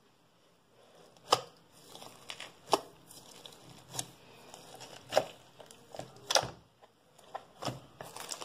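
A hand squishing and kneading a tub of old slime mixed with small beads and glitter, giving irregular sharp pops and clicks about once a second, the loudest about a second in.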